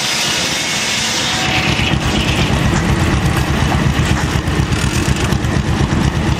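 Engine driving a sawmill, running under load with a rapid, even exhaust beat that grows louder about a second and a half in.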